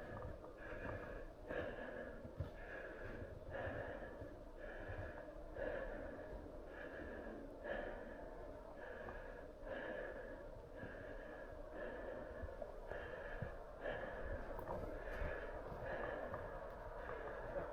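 A person breathing heavily and fast, close to the microphone, at about one breath a second.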